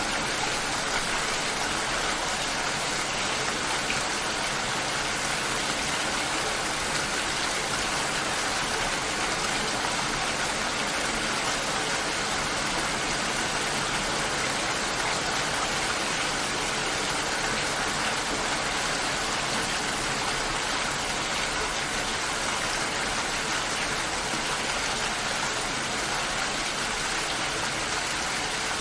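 Steady rainfall, an even hiss with no let-up or change.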